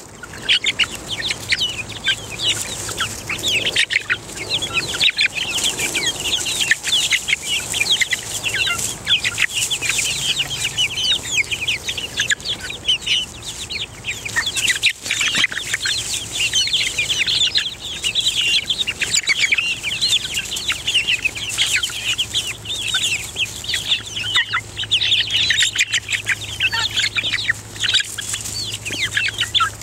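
A flock of six-week-old pullets giving a constant stream of short, high peeps and chirps as they crowd in and eat grain from a hand.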